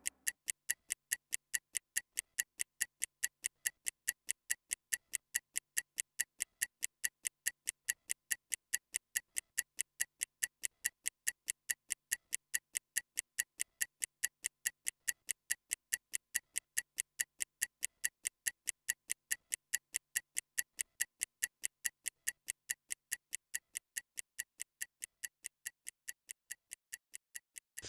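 Stopwatch ticking sound effect: a steady, even run of sharp ticks counting down a 30-second rest interval, growing slightly fainter near the end.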